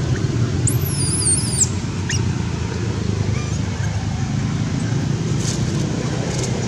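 Steady low outdoor rumble, with a single high-pitched squeak lasting about a second, about a second in.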